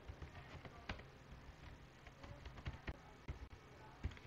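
Typing on a computer keyboard: faint, irregular keystroke clicks, a few of them sharper, about a second in, around three seconds and near the end.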